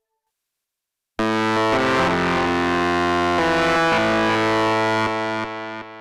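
Martinic AX73 software synthesizer, an emulation of the 1986 Akai AX73, playing its 'Electric Dist Guitar' preset: a distorted, guitar-like chord starts about a second in, its notes shifting partway through. It is held for about four seconds and cuts off right at the end.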